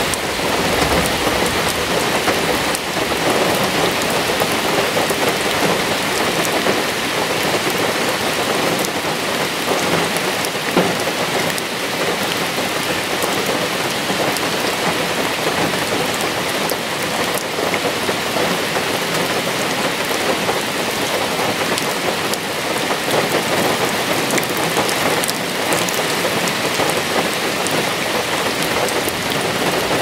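Heavy rain pouring steadily, an even dense hiss of falling drops.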